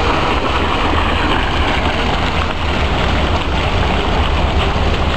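Radio-controlled boat running on a pond: a steady, even rushing noise with a low rumble underneath and no breaks.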